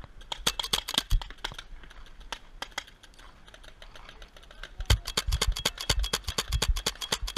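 Paintball markers firing rapid strings of sharp pops: a quick run of shots in the first second and a half, scattered shots after that, and a dense volley from about five seconds in.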